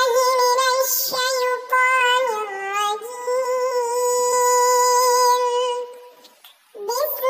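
A high, child-like voice chanting Quran recitation in the melodic murottal style, holding long notes with ornamented turns. It breaks off about six seconds in and resumes near the end.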